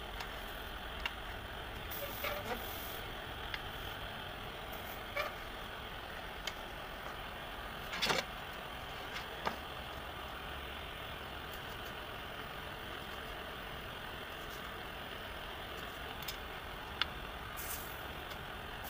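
Steady mechanical hum with a few light metallic clicks and taps from handling a pierced brass lantern panel, the most distinct about eight seconds in.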